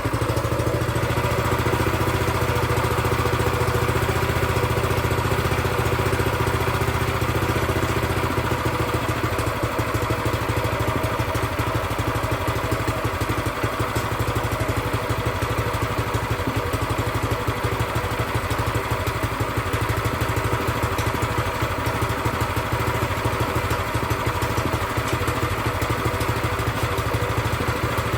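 New Predator 212cc single-cylinder four-stroke engine on a plate compactor, idling steadily on its first run, with the idle speed raised a little.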